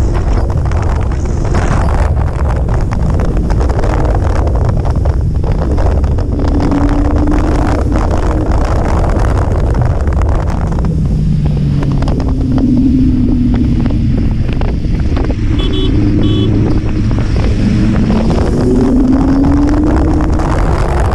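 Kawasaki Z800 inline-four engine running at highway speed, mostly buried under heavy wind buffeting on the microphone. Its pitch glides up and down a few times as the throttle changes, rising again near the end.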